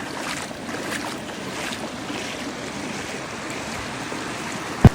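Steady rushing of river water, with one brief thump near the end.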